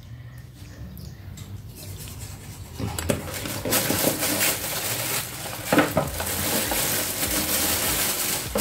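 Clear plastic bag crinkling and rustling around a new sandwich maker as it is handled and lifted out of its foam packaging. It is quiet at first, then loud and steady from about three seconds in, with a few sharper knocks.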